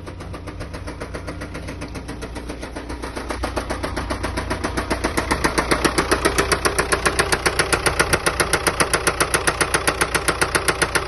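Volkswagen Passat B6 2.0 TDI (BKP) four-cylinder diesel running with a rapid, even knock that grows louder about three seconds in, then holds steady. The knock comes from a spun bearing shell on the fourth cylinder, found when the engine was stripped.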